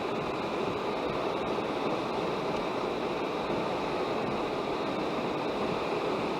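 Steady road and wind noise inside a vehicle driving at highway speed.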